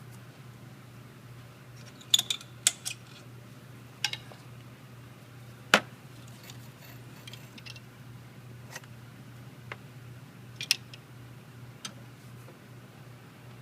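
Hand tools clinking and clicking against metal engine parts: about a dozen separate sharp taps spread irregularly, the loudest about six seconds in, over a steady low hum.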